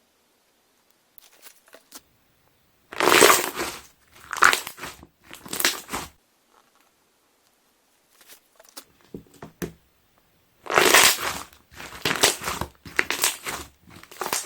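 Slime being pressed and squeezed by hand, its trapped air bubbles popping in quick runs of small pops. The squeezes come in two groups of three or four, with a fainter group between them.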